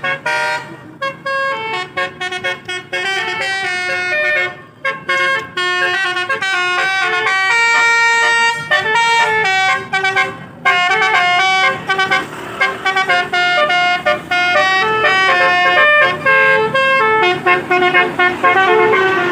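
Telolet basuri bus horns playing a quick tune of short tooting notes, several horn tones sounding together, with a longer held chord about eight seconds in.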